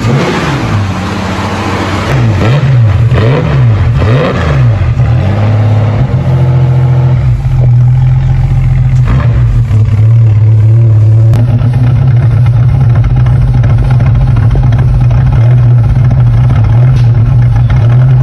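Holden VK Commodore engine running, freshly started on a newly fitted ignition coil. It is revved up and down several times in the first five seconds, then settles to run steadily.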